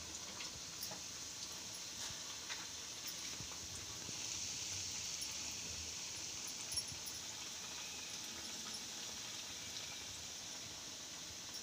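Stuffed bread rolls deep-frying in hot oil: a steady sizzling hiss with scattered small pops and crackles, a little louder from about a third of the way in, with one sharper pop past the middle.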